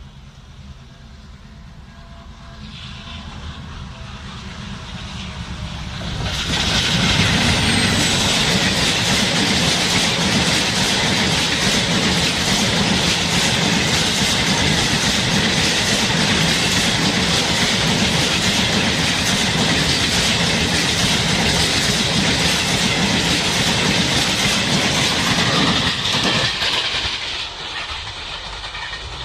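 A train passes close by on the track. Its noise builds for the first few seconds, turns suddenly loud about six seconds in, and holds as a steady rush of wheels on rails for about twenty seconds. It falls away again near the end.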